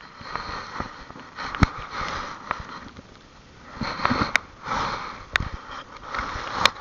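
A person breathing and sniffing close to the microphone in a series of noisy puffs, with a few sharp clicks in between.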